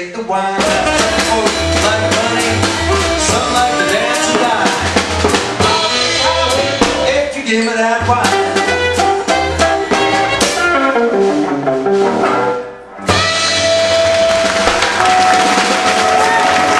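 Live band playing an instrumental passage with no singing: electric guitar, upright bass, drum kit and saxophone. About 13 seconds in the music drops away for a moment and a different passage with long held notes begins.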